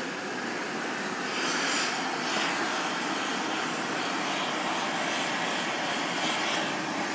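Oxy-fuel torch flame hissing steadily as it heats a rivet set in the gate frame, getting louder about a second in.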